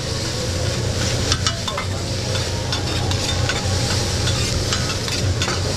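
Fried rice sizzling on a hibachi steel griddle as two metal spatulas stir and scrape through it, with scattered sharp clicks of the spatulas on the steel.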